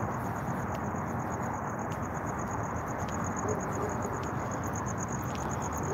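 Crickets chirping in a steady, high-pitched pulsing trill over an even low background rumble.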